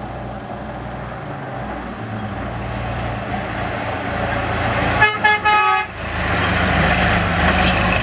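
A DAF rally truck's diesel engine running as it drives through sand, growing louder as it approaches. About five seconds in, a horn gives three quick toots, and then the engine and the rush of tyres in sand get louder as the truck passes close by.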